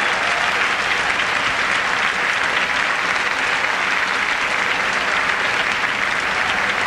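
Large stadium crowd applauding steadily, a dense even clatter of clapping.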